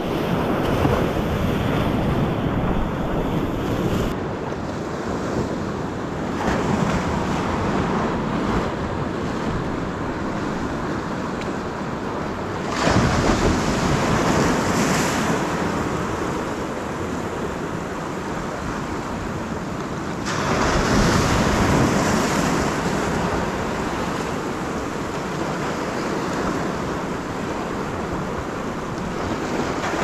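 Ocean surf surging and washing over a rocky shore, with wind buffeting the microphone. Waves swell louder about 13 seconds in and again around 21 seconds.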